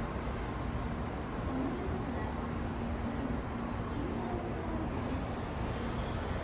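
Steady railway-station platform ambience: an even background noise with a faint low hum and no distinct passing train or announcement.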